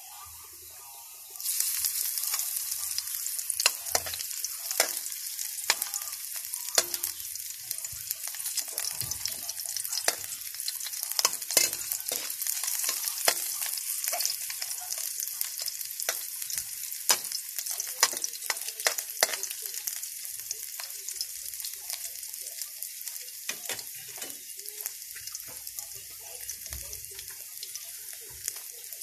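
Chopped onion and garlic sautéing in a steel pan: a sizzle starts suddenly about a second and a half in as the onion goes in, then eases slowly toward the end. A metal ladle clicks and scrapes against the pan again and again as it stirs.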